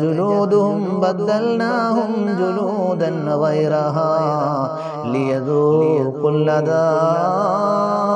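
A man's voice in a sustained, melodic, chant-like delivery, the pitch held and drawn out with few pauses.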